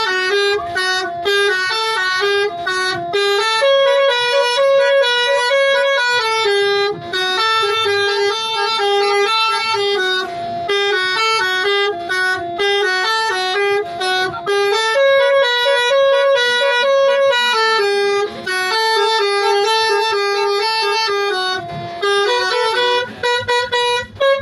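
A multi-tone 'telolet' horn playing a melody, its bright, buzzy notes changing several times a second with short breaks between phrases.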